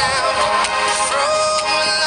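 Background music: an electronic pop track with a melody that glides up and down in pitch.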